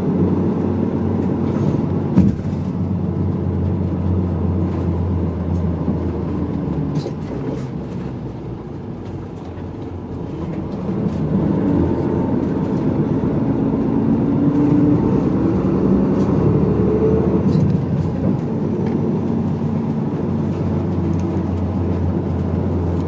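Medium-size route bus heard from inside the cabin: engine and road noise, easing off for a few seconds and then rising in pitch as the bus gathers speed again. A single sharp click comes about two seconds in.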